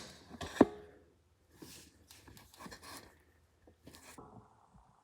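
Light metal clicks and taps from a garden tractor's control linkage being fitted by hand, the loudest a sharp clink with a short ring about half a second in, followed by softer scattered taps and rubbing.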